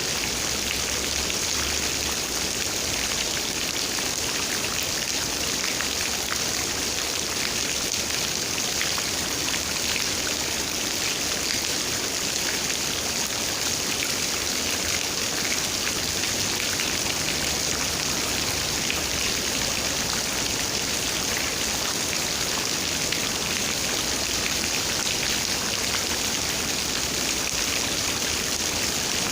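Steady rain falling: a dense, even hiss of countless small raindrop hits, unchanging throughout.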